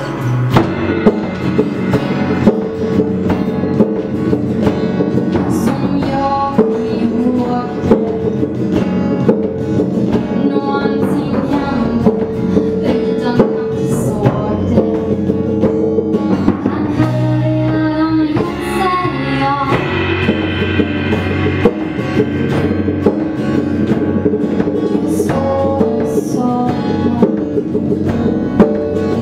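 Live acoustic band music: acoustic guitars with a drum kit, the drums and cymbals played with soft mallets in a steady beat.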